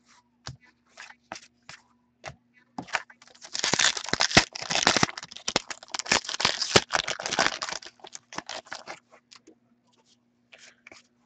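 A trading-card pack wrapper being torn open and crinkled by hand: a few scattered clicks and taps of cards being handled, then several seconds of dense tearing and crackling rustle, then a few more taps.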